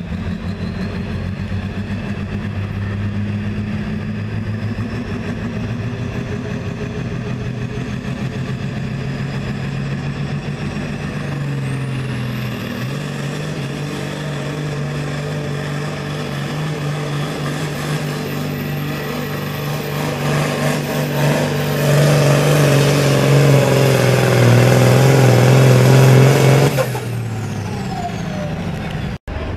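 Turbocharged diesel hot farm pulling tractor hooked to a weight-transfer sled. The engine runs steadily at first. About 12 seconds in it goes to full power with a rising turbo whine, and it grows louder to its loudest in the last part of the pull. Near the end the throttle is cut sharply and the turbo winds down.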